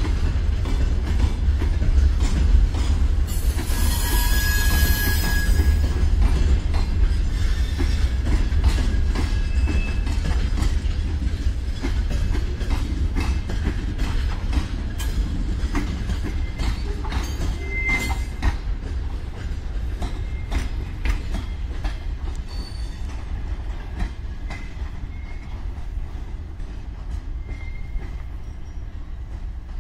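Freight train of open gondola wagons rolling slowly past: a steady rumble with wheels clicking over rail joints and a few brief high wheel squeals. The sound fades as the tail of the train moves away.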